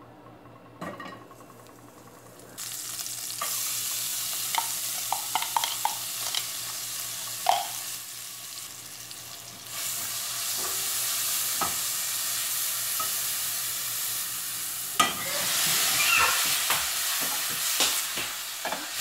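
Chopped onion and garlic frying in butter in a pot, sizzling steadily with the scrape and tap of a silicone spatula stirring; the sizzle starts about two and a half seconds in. About fifteen seconds in it suddenly gets louder as pieces of beef liver go into the hot pot.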